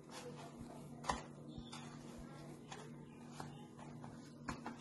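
Quiet handling sounds: a few soft knocks as semolina-coated fish pieces are shifted about in a tray, the clearest about a second in, over a steady low hum.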